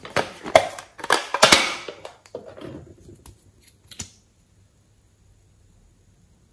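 Crinkly rustling and sharp snaps of plastic packaging being handled and opened: a rainbow zippered pouch and a clay piping bag. It is loudest in the first two seconds and ends with a few separate clicks about four seconds in.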